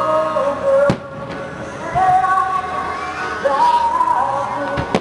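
Fireworks shells bursting with sharp bangs over music with long held notes: a loud bang about a second in, a lighter one at two seconds and another loud one just before the end.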